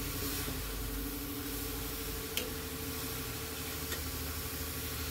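Grated beetroot and carrot cooking in an iron kadhai, a steady soft hiss and sizzle, with a faint steady hum under it and a single click about halfway through.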